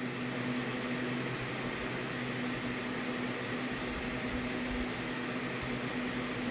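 Steady background hum with an even hiss: room tone.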